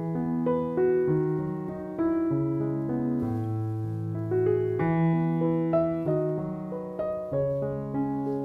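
Background piano music: a gentle melody of sustained notes and chords, a new one about every half second to a second.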